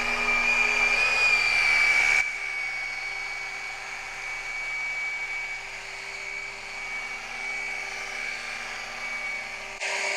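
Electric rotary polisher working on glass, its motor giving a steady high-pitched whine. About two seconds in it abruptly drops quieter and keeps running.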